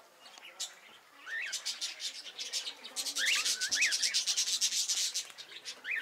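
Aviary cockatiels calling: a few short rising whistles over a fast, scratchy chatter that grows loudest from about three seconds in.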